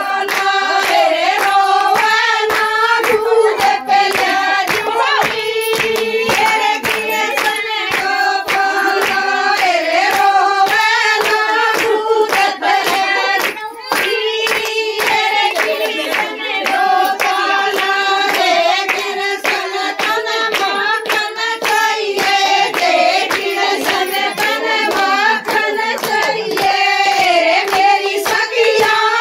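Group of women singing a Haryanvi devotional folk song (a Krishna–Radha bhajan), with steady rhythmic hand clapping keeping the beat.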